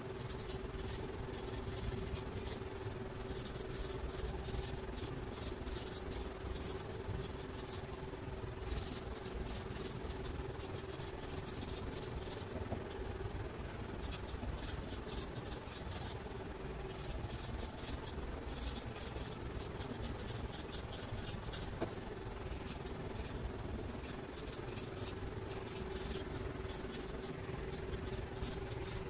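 Felt-tip marker writing on paper: quick scratchy strokes in bursts, broken by short pauses between words, over a steady low hum.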